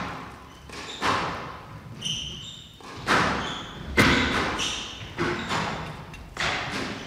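Squash ball rally: a hard rubber ball struck by rackets and smacking off the court walls about once a second, each hit ringing on in the hall, with short squeaks of court shoes on the wooden floor between shots.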